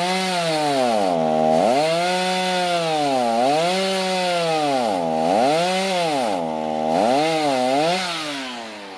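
Electric chainsaw cutting into an ash log, its motor pitch dropping as the chain bites and rising again as it frees up, over and over about once a second. It slows down near the end.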